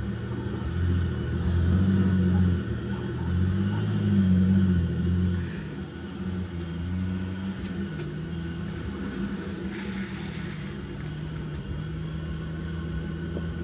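Jeep Gladiator engine pulling at low speed on a dirt trail, heard from inside the cab. Its note swells and falls over the first five seconds or so, then settles to a lower, steadier run.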